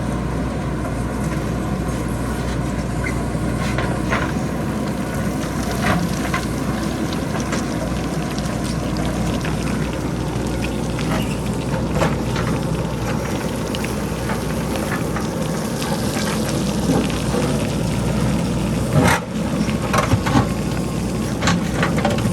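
A JCB backhoe loader's diesel engine runs steadily while rocks and pebbles loosened from the hillside clatter down the slope in scattered knocks and clacks. The knocks come closer together near the end.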